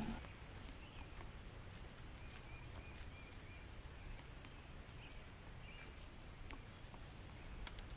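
Faint chickens calling in short, repeated notes, twice, over a low steady wind rumble.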